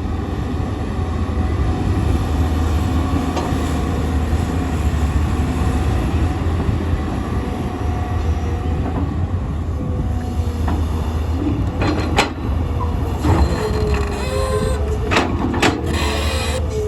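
Tracked hydraulic excavator working, its diesel engine running with a steady low drone. In the second half come several sharp metal clanks and a wavering high squeal, typical of steel tracks and bucket on rock.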